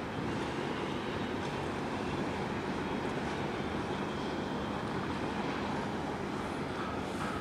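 Steady harbour background noise: an even low rumble with a hiss on top and no distinct events.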